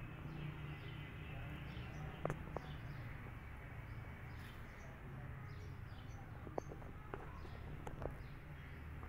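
Outdoor ambience of small birds chirping faintly and often, over a steady low hum, with a few faint sharp clicks.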